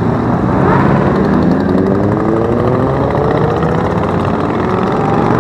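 Parade of motorcycles riding past one after another, their engines running, with one engine note climbing steadily in pitch through the second half as a bike accelerates.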